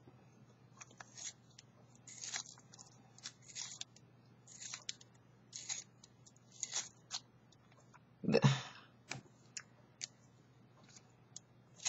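Small handheld pencil sharpener shaving a wooden pencil: short scraping rasps about once a second as the pencil is twisted in the blade. About eight seconds in there is one longer, louder rustling rasp.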